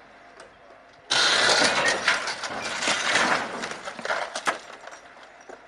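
A wrecked SUV slips from a crane truck's hoist and its front end hits the road. A sudden loud crash comes about a second in, then about three seconds of clattering and scraping that fade.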